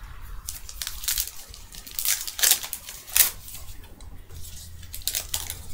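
Topps Allen & Ginter trading cards being handled and flipped through by hand: a run of short papery rustles and snaps of card stock, the loudest a little after two and three seconds in.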